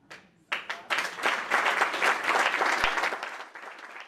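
Audience applauding. A first clap comes right at the start, the clapping breaks out about half a second in, is loudest for a couple of seconds, then thins.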